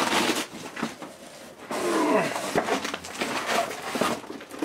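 Large cardboard shipping box scraping and rustling, with knocks, as a solar panel is slid out of it.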